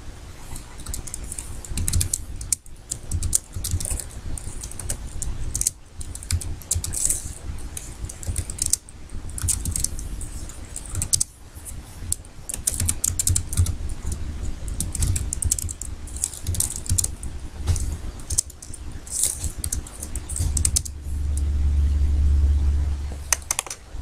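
Typing on a computer keyboard in quick, irregular runs of keystrokes with short pauses between words. A low steady rumble joins in for the last few seconds.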